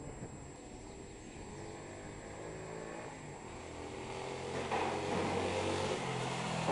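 A vehicle engine running steadily, growing louder over the second half.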